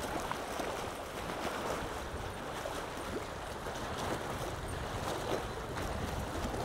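Wind buffeting the microphone in an unsteady low rumble over a steady rushing noise.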